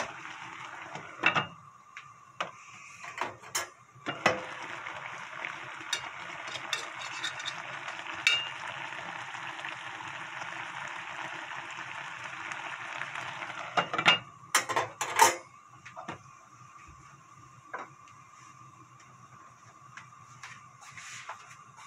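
Fish braise bubbling and sizzling at a simmer in a ceramic-coated pot, with a few light knocks. About 14 to 15 seconds in, a glass lid clatters onto the pot in several sharp clicks, and after that the bubbling is much quieter.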